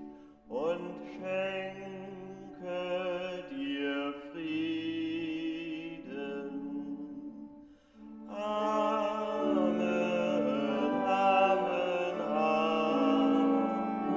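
Church music: slow, chant-like singing on held notes. About eight seconds in, after a brief dip, a louder and fuller passage begins with many notes sounding together.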